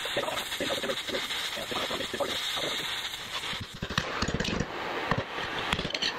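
Gas torch flame hissing steadily as it heats a bent slide to straighten it, with a few short knocks between about four and five and a half seconds in.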